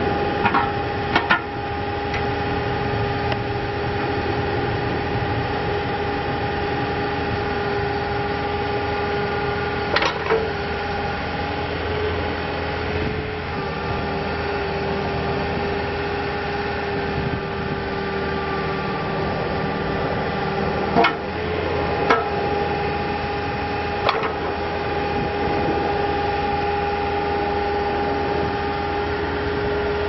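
Takeuchi TB153FR mini excavator's diesel engine running steadily under hydraulic load with a steady whine, as the boom, arm and bucket are worked. A few sharp knocks come through, about a second in, around ten seconds, twice around twenty-one to twenty-two seconds and again at twenty-four.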